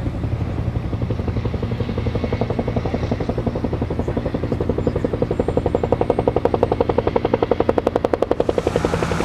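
Two-bladed Huey-type military helicopter flying low overhead, its rotor blades chopping at about ten beats a second over the turbine. The blade slap grows louder as it approaches, and a rush of hiss comes in near the end.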